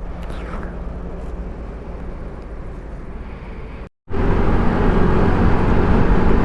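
Scooter engine and road noise as the bike rides off, with steady engine tones under the noise. The sound cuts out completely for a moment about four seconds in, then comes back louder.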